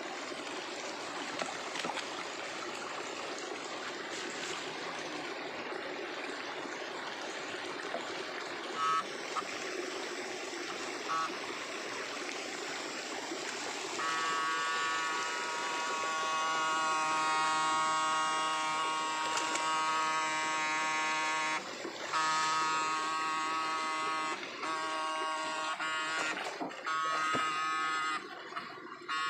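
River water running, then from about halfway a steady electric buzz from the electrofishing shocker's inverter, breaking off briefly a few times near the end. Two short buzz blips come a little before it starts.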